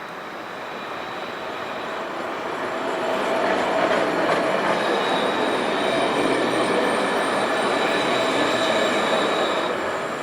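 Tram on its rails, growing louder over the first few seconds as it comes in, with a steady high wheel squeal through the middle, easing off near the end.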